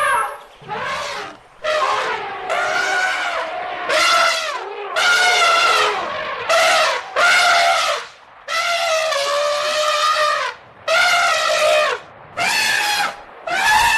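Elephant trumpeting: about ten loud, high calls one after another, each lasting up to about two seconds, separated by short pauses.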